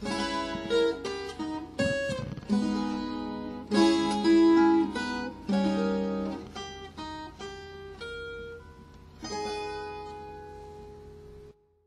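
Guitar playing the closing bars of a song as a run of picked notes and chords, each dying away. A final note rings for about two seconds, then the sound cuts off sharply just before the end.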